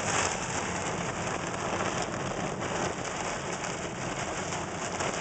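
Heavy rain beating steadily on a car's roof and windshield, heard from inside the car.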